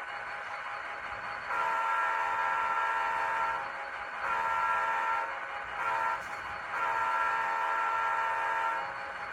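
Locomotive chord horn sounding the grade-crossing signal: two long blasts, a short one, then a long one.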